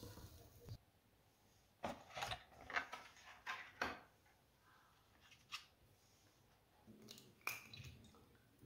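Faint sizzle of the omelette frying in the pan, cut off under a second in. Then a run of light, sharp clicks and taps as eggs are handled in a cardboard egg carton. Near the end, a click and a soft sound of egg white pouring into a glass bowl.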